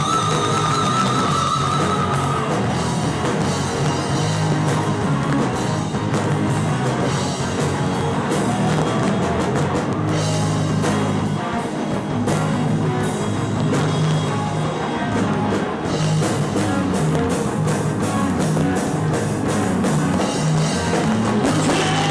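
Rock band music with electric guitars and a drum kit in an instrumental stretch without singing, opening on a single held high note.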